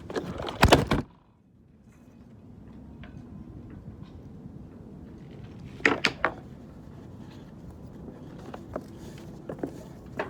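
A loud cluster of hard thunks just under a second in, then a couple of quieter knocks about six seconds in and a few light clicks near the end, from gear being handled on a sailboat's deck.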